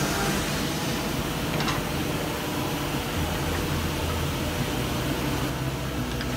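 Steady running hum of a CNC-500 dovetail jointing machine's motor, with a low drone underneath and a faint click about a second and a half in.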